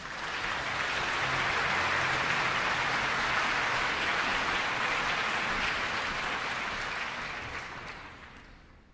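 Concert-hall audience applauding. The clapping swells quickly, holds steady, and dies away over the last second or two.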